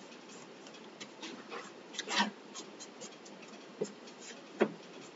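Makeup sponge rubbing and dabbing acrylic paint onto laser-cut wood: faint, scratchy rubbing with a few soft taps, and a short louder rustle about two seconds in.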